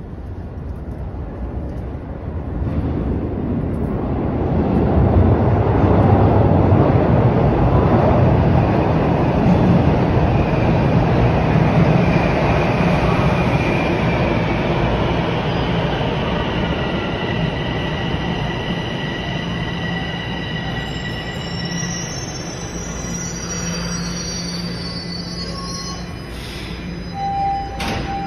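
Toronto Rocket subway train pulling into the station. The rumble of the cars builds over the first few seconds and then eases as the train brakes to a stop, with high-pitched whining and squealing tones through the slowdown.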